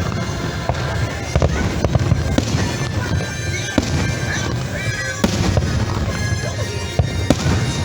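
Fireworks going off over the lake: many sharp pops over a steady low rumble, with music playing underneath.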